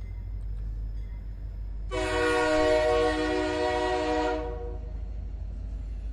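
A train sound effect: a low steady rumble, with one long steady train horn blast starting about two seconds in and fading out after some two and a half seconds.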